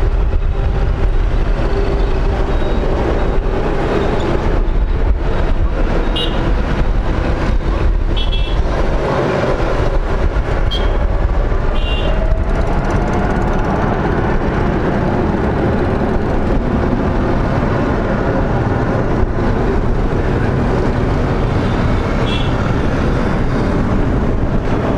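Jet engines of a Boeing 787-10 (Rolls-Royce Trent 1000) running as the airliner taxis on the runway: a steady, loud rumble and whine. Partway through, a tone rises slowly in pitch. A few short high chirps sound now and then.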